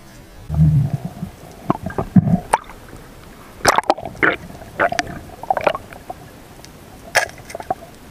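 Underwater sounds heard through a submerged camera: a low, muffled thump about half a second in, then a series of irregular sharp clicks and knocks with some gurgling.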